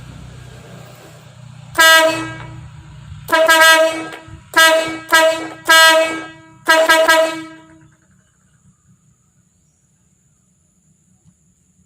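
Tankless 12/24-volt car and truck air horn sounding six loud blasts on one steady pitch: a short one, then a quick string of five. A low rumble runs underneath the first few seconds, and the blasts stop about eight seconds in.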